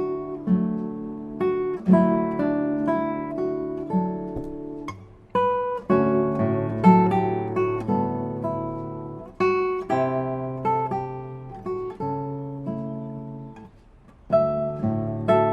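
Solo acoustic guitar music, plucked and strummed chords and notes that ring and fade, in phrases with brief pauses.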